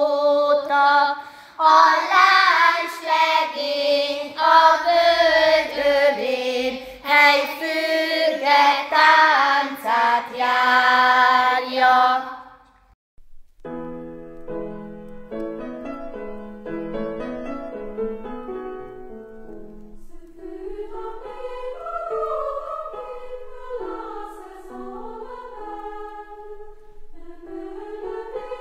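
A group of girls and women singing a Hungarian children's song in unison, ending about twelve seconds in. Quieter instrumental music follows.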